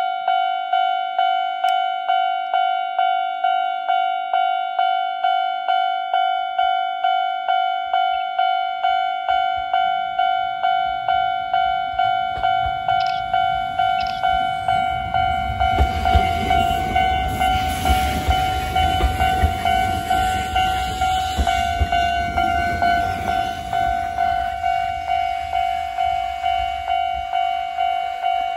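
Japanese railroad crossing bell ringing steadily at about one and a half strikes a second, while a Konan Railway 7000-series stainless electric train runs past. The train's rumble builds from about seven seconds in, is loudest in the middle and eases off toward the end.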